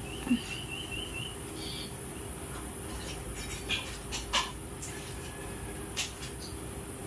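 A bird gives a short warbling trill, then a single chirp, over a steady background hum. A dull thump comes just after the start and is the loudest sound; a few sharp clicks or taps follow later on.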